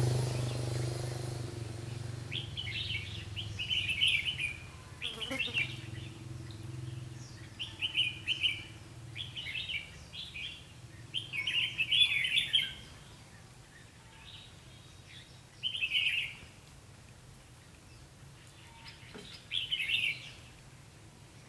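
Red-whiskered bulbuls singing: short, bright chirping phrases every second or two, busiest through the first half and sparser near the end. A low hum fades away over the first few seconds.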